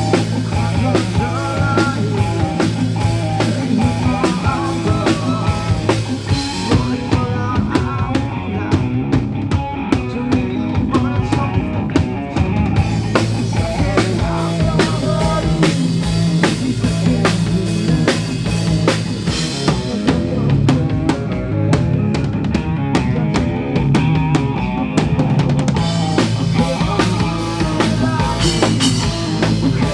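Live rock band playing during a sound check, the drum kit's kick and snare hits loudest over steady bass notes.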